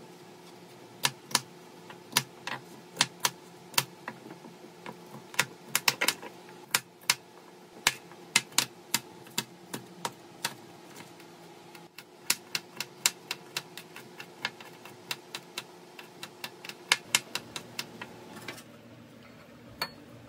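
Kitchen knife chopping vegetables on a cutting board: irregular sharp knocks of the blade striking the board, one to three a second, over a faint steady hum.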